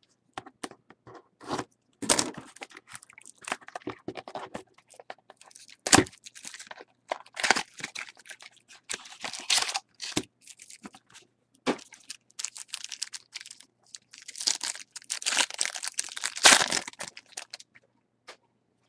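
A Topps baseball card pack being torn open and the cards pulled out and handled: irregular tearing, crinkling and scraping of wrapper and card stock, with sharp snaps about six seconds in and again during a busier stretch near the end.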